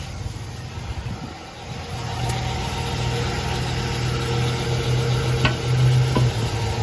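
Chevy Silverado pickup's engine idling with a steady low hum, just started by bridging the starter with a metal rod to get round a no-crank fault; the hum grows louder about two seconds in. Two light clicks near the end.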